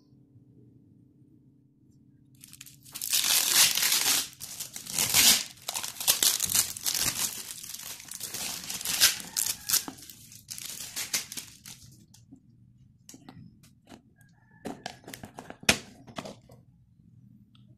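Brown packing tape being peeled and torn away from the seal around a jar's lid, a crackling tearing noise in several long pulls. Near the end come a few sharp clicks as the plastic lid is handled and taken off.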